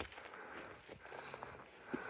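Footsteps of a person hiking up rocky ground: a few scuffing footfalls, about one a second.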